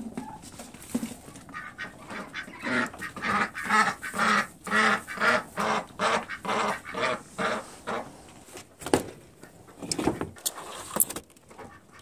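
Domestic ducks quacking: a run of about a dozen loud quacks, roughly two a second, that stops about eight seconds in. A few sharp knocks follow near the end.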